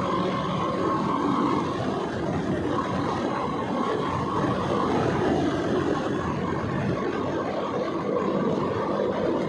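KTM RC motorcycle's single-cylinder engine running steadily while cruising on the road, heard from the rider's seat.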